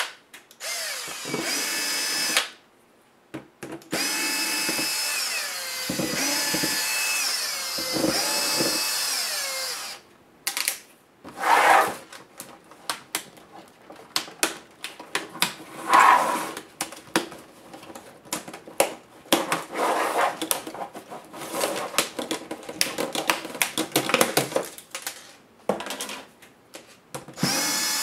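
Cordless electric screwdriver whirring in several short runs, its pitch sliding down as each run stops, backing out the screen-bezel screws of an Acer Extensa 4620 laptop. From about ten seconds in come many irregular plastic clicks and snaps as the bezel is pried off the LCD panel.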